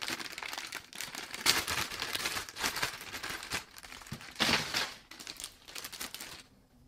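A clear plastic zip-lock bag full of small crimp-sealed packets crinkling and rustling as it is handled, with a few louder crackles; it stops abruptly near the end.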